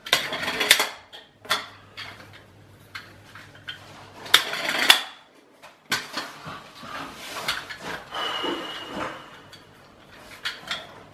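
Hard plastic toy game being handled and played with: a string of sharp clicks, knocks and rattles as its parts are worked.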